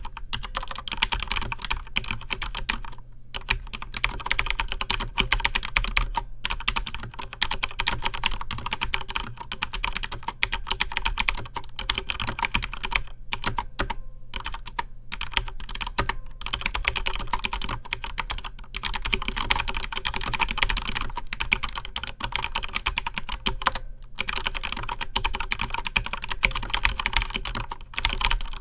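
Corsair K95 RGB Platinum mechanical keyboard with Cherry MX Speed Silver linear switches being typed on quickly and continuously: a dense run of keystroke clacks, broken by a few brief pauses.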